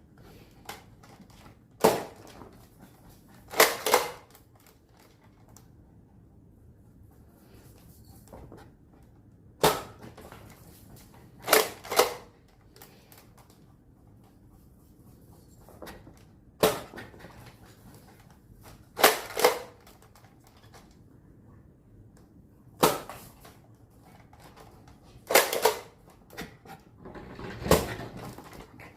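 Toy Nerf blaster fired and re-primed four times over: each time a sharp snap of the shot, then about two seconds later the double rattle of the priming slide pulled back and pushed forward.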